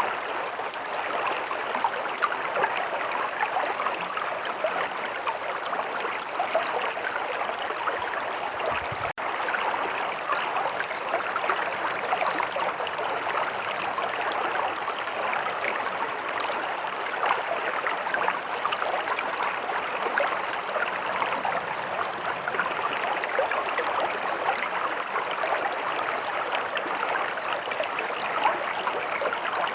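Shallow stream running steadily over rocks: a dense rush of water full of small splashes and burbles, with a split-second gap about nine seconds in.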